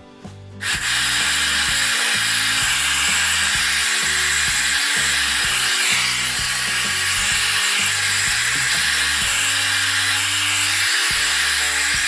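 Clairol hair dryer switching on under a second in and then blowing steadily: a loud, even rush of air and motor hiss. Background music with a slow stepping bass line plays underneath.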